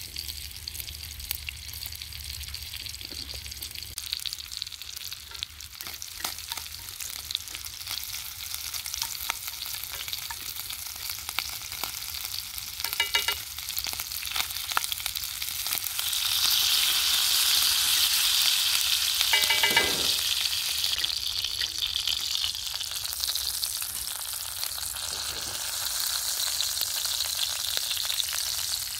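Sausages, bacon and diced potatoes sizzling in hot fat in a cast iron skillet, with stirring; the sizzle swells louder for a few seconds around the middle.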